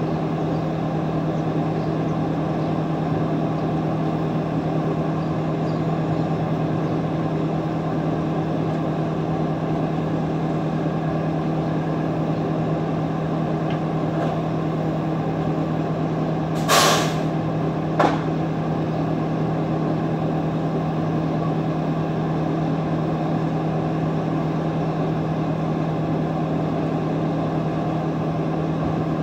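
Steady low mechanical hum, like an idling engine or machine, holding one pitch throughout. A little past halfway a short sharp hiss cuts in for about half a second, followed about a second later by a single click.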